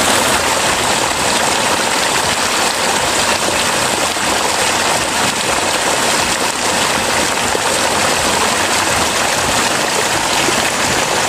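Water pouring steadily from an irrigation pipe into a shallow muddy pool, an even rushing splash.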